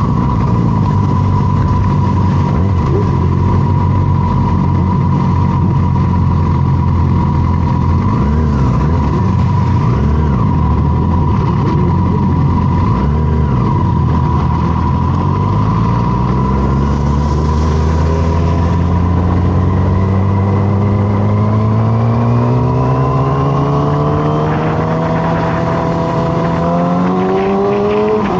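Motorcycle engine running at steady revs, then from about halfway through its pitch climbs slowly and evenly as it accelerates. A steady high whine runs throughout.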